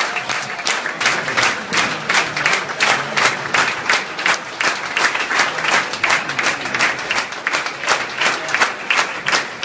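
A group of people applauding, with many distinct sharp claps.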